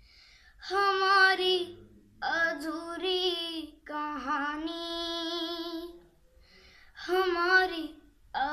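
A boy singing a slow Hindi film ballad without accompaniment, in four drawn-out phrases with short breaths between them. The longest note is held steadily near the middle.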